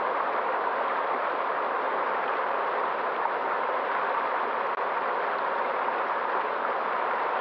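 River water flowing: a steady, even rush with no breaks.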